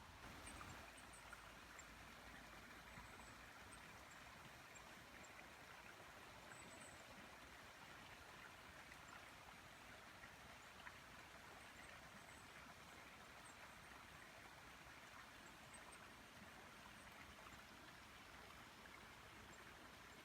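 Near silence: a faint, steady outdoor hiss, with a few faint, short, high chirps scattered through it.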